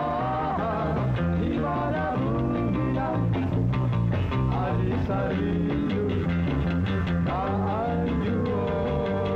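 A kugiran band performing live: a singer's voice over electric guitars, bass and drums with a steady beat.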